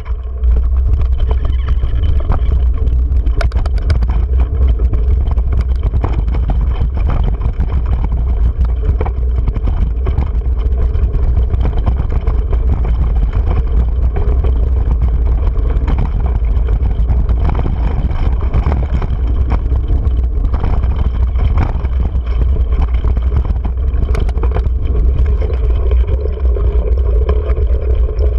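Mountain bike ridden over a rough, rocky dirt trail, heard from a handlebar-mounted GoPro: a loud, steady low rumble of wind and tyres on dirt, with frequent small rattles and knocks from the bike.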